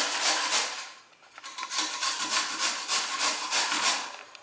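Bottle gourd (lauki) being grated into a pulp on a hand grater: quick, even rasping strokes about four a second, with a brief pause about a second in.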